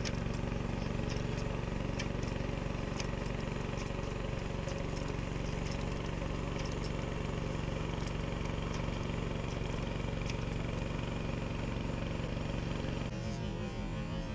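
A small motor running steadily at one unchanging pitch, cutting off about a second before the end.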